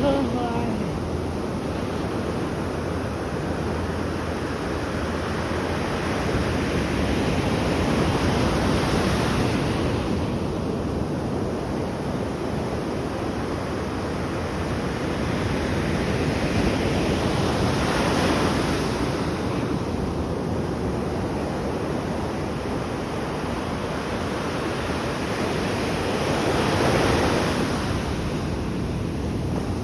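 Atlantic Ocean surf: a steady wash of waves, with three larger waves breaking about nine seconds apart.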